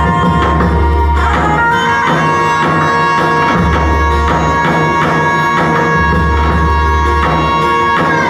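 Instrumental tallava music: a held synthesizer-keyboard melody over a steady, fast hand-drum beat and a pulsing bass, with no singing.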